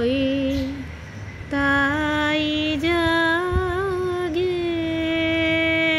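A woman singing a slow Bengali song, drawing out long notes: a phrase ends just under a second in, then after a short pause she sings on, settling into one long steady note from about three seconds in.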